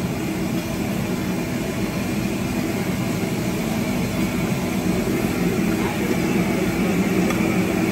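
Chicken pieces frying in a wide, shallow pan of hot oil, bubbling and sizzling over a steady low roar.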